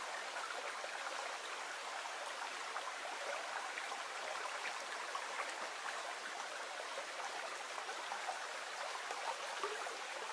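Dulas Brook, a small hill stream, running and trickling steadily.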